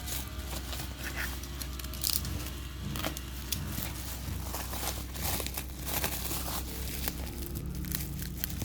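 Packaging crinkling and tearing as it is handled and pulled open by hand, in irregular crackles and rips.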